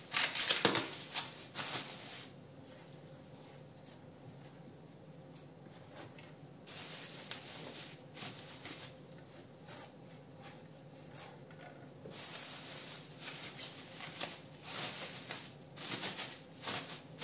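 Thin plastic bag crinkling and rustling as handfuls of bulgur dough are pressed into it and the bag is gathered around the dough. The loudest burst comes in the first two seconds, with more rustling from about the middle on.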